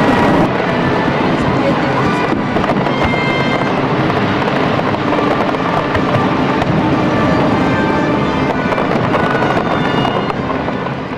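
Aerial fireworks bursting in a dense, continuous barrage, many shells going off in quick succession, with crowd voices and music underneath; the sound fades near the end.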